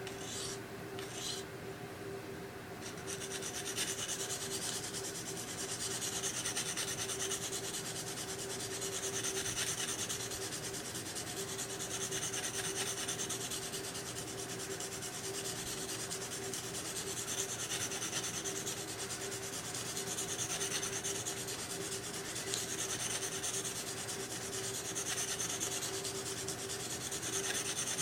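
Knife blade being stroked across an oiled 280-grit medium sharpening stone. A few short scraping strokes are followed, from about three seconds in, by continuous rasping rubbing that swells and fades in slow sweeps every few seconds.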